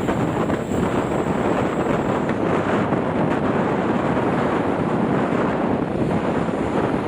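Strong wind buffeting the microphone: a loud, steady rushing noise that rises and falls slightly.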